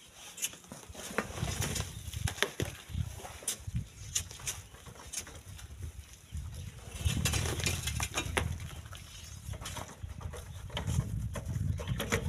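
A long iron pole being jabbed and scraped into a volcanic-sand cliff, with loose sand and small stones trickling and clicking down the face in many small ticks. A low rumble comes in about seven seconds in and again near the end.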